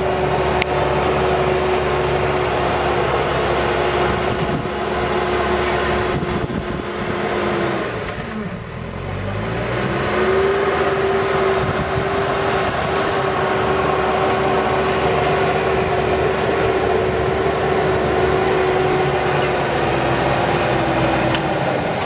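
JCB 3DX backhoe loader's diesel engine running under load as the loader works the mud. Its note drops away about eight seconds in, then climbs back and holds steady.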